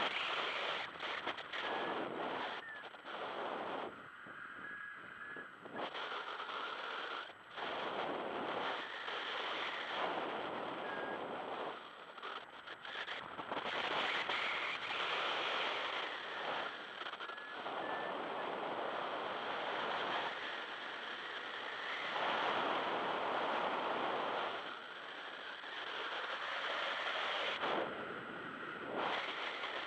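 Wind rushing over the microphone of a paraglider pilot's camera in flight, swelling and easing every few seconds.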